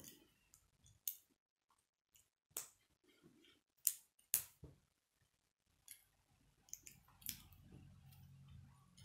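K'nex plastic pieces clicking and snapping together as gears and connectors are fitted by hand: scattered sharp clicks, the loudest two close together about four seconds in.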